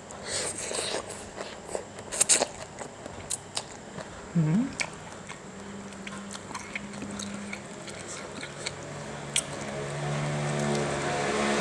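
Close-up eating sounds of spicy Thai instant-noodle salad (yum mama): crisp bites and crunching, then quieter chewing. Over the last few seconds a low steady hum grows louder.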